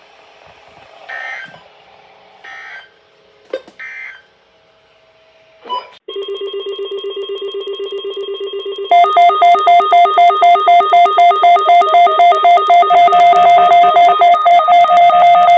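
An electronic alert alarm beeping in rapid pulses. It starts about six seconds in, then about three seconds later jumps much louder and higher in pitch.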